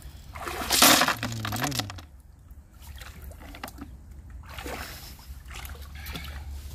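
Freshwater snails tipped from a net into a plastic bucket, their shells clattering loudly about a second in. Softer splashing and dripping follow as the net goes back into the water.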